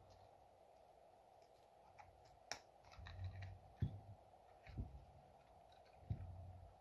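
Faint clicks and taps of a metal pick and the chainsaw carburetor's parts being handled on a bench, with one sharper click about two and a half seconds in and a few soft low bumps from about four seconds on, over a low steady hum.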